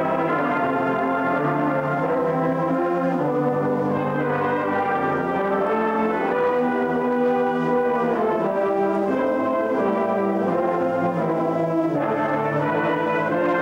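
A brass band of tenor horns, euphoniums, tubas and trombones playing together: held chords that move every second or two, at an even volume.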